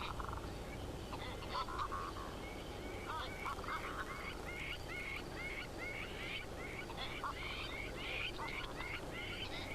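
A flock of birds calling: many short, rising chirping calls in quick succession, several a second, thickening after the first couple of seconds.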